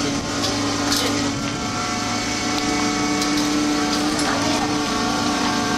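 Steady mechanical drone of a fishing boat's machinery running, a hum with several held tones, with a few faint knocks on top.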